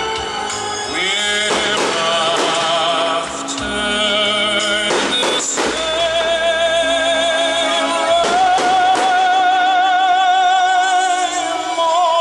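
Background music with a singing voice holding long notes with a wide vibrato over instrumental accompaniment.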